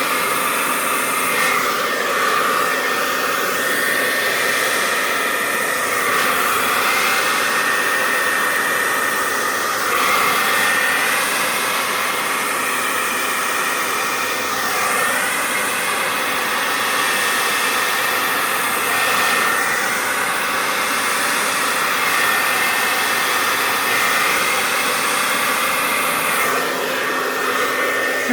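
Handheld hair dryer running steadily on high, blowing wet acrylic paint across a canvas; its rushing tone shifts a little every few seconds as it is moved around.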